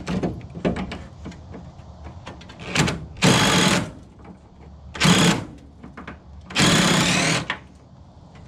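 Cordless DeWalt impact driver hammering in three short bursts, the last the longest, backing out a bolt on the VW Beetle's steering coupler (rag joint) while a wrench holds the nut. Light metal clicks of the wrench and tools come at the start.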